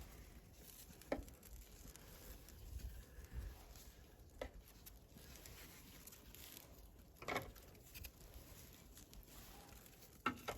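Chicken legs being laid one by one on the grate of a charcoal kettle grill: four brief, faint taps about three seconds apart, the third the loudest, over a low rumble.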